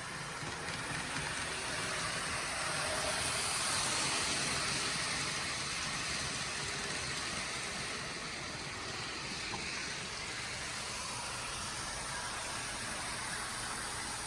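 N scale model train running on its track: a steady hiss of the locomotives' motors and the wheels. It grows louder a few seconds in, then settles.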